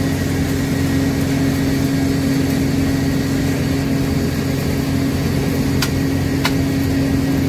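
Tractor running a PTO-driven feed grinder, a steady mechanical drone with an even hum. A couple of faint clicks about six seconds in.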